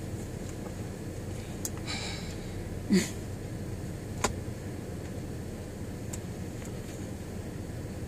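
Steady hum of a car cabin, with the plastic and metal of a child car seat's harness buckle being handled: a rustle about two seconds in, a short loud sound about a second later, and a single sharp click a second after that.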